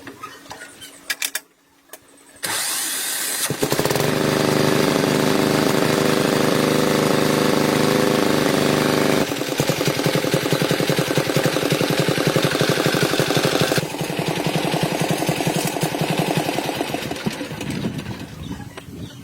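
A tractor engine starts about two and a half seconds in and runs steadily. Around nine seconds in its note changes to a fast, even chugging. It gets quieter from about fourteen seconds and fades near the end.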